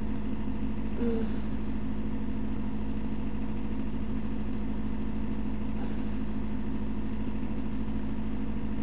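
Steady low hum and buzz at an even level, with a brief faint voice-like blip about a second in.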